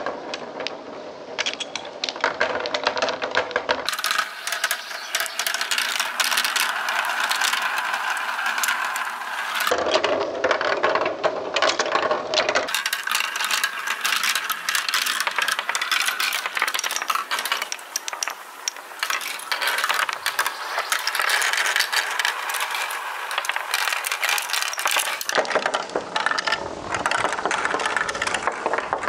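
Glass marbles rolling and clattering along marble-run tracks and funnels: a dense stream of small clicks and rattles that changes character abruptly four times.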